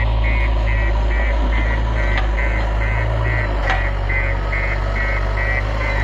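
JCB 3DX backhoe loader's diesel engine running at a steady low drone, with its reversing alarm beeping about two and a half times a second. A couple of brief knocks come through about midway.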